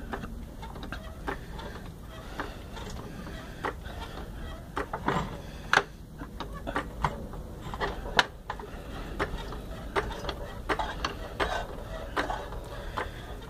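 A jack being worked to raise an automatic transmission into place under the truck, giving irregular metallic clicks and clunks over a low steady hum, with two sharper knocks about six and eight seconds in.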